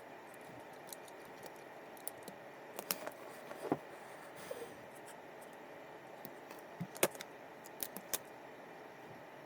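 Small hard clicks and taps of fishing-reel parts and tools being handled during disassembly, a scattered handful with a short cluster a few seconds in and another near the end.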